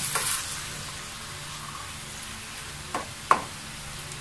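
Pork pieces and onions sizzling in hot oil in a pot as they brown, stirred with a spatula. About three seconds in, the spatula knocks twice against the pot, the second knock sharper.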